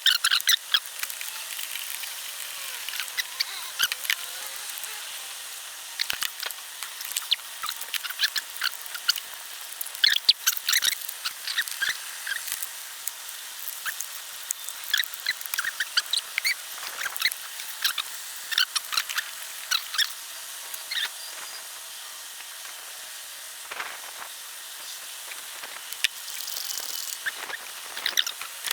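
Irregular bursts of small clicks and light metallic taps from hand tools working as a new glow plug is fitted into the engine.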